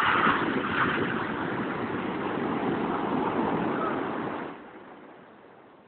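Surf rushing up the beach, a loud wash of breaking-wave water that dies away after about four and a half seconds.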